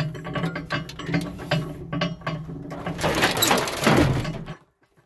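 Irregular metallic clicking and rattling as a homemade crane hoists a washing machine's inner drum, busiest just before it cuts off abruptly near the end.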